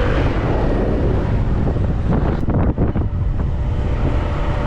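Wind buffeting the camera microphone: a steady, loud low rumble with an even hiss over it.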